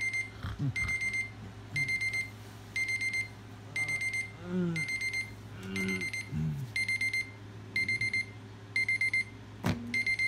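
Electronic alarm beeping in a steady pattern: a quick cluster of high beeps about once a second. A single sharp knock near the end.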